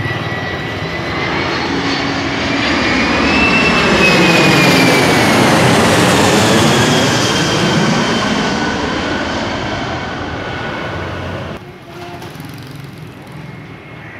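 Airbus A320-family jet airliner passing low overhead on landing approach. The engine roar and whine swell to a peak a few seconds in, then fall in pitch and fade as the plane goes by. Near the end the sound drops suddenly to the fainter roar of a distant jet.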